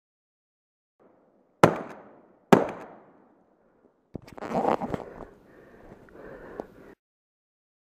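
Two hunting gunshots, a little under a second apart, each dying away in an echo, fired during a wild boar drive hunt. A few seconds of rustling with scattered knocks follow.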